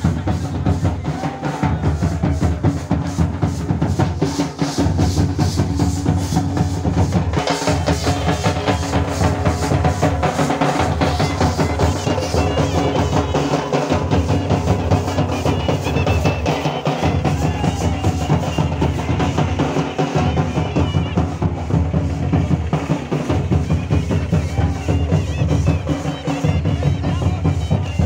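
Large hand-carried procession drums beaten in a fast, steady rhythm, with a deep booming beat.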